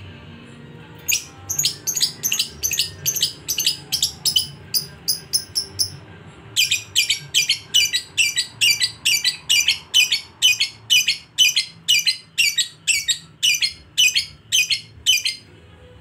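Lovebird 'ngekek' song: a long chattering series of sharp, high-pitched chirps repeated about three to four times a second, with a brief break about six seconds in, then a longer run that stops shortly before the end.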